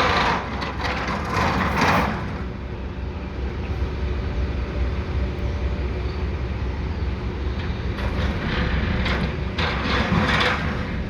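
Excavator's diesel engine running at a construction site with a steady low rumble, working while dirt is packed down in a trench. Louder noisy surges come in the first two seconds and again about ten seconds in.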